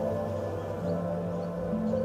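Background music: a slow ambient piece of sustained held notes, its low note changing about a second in.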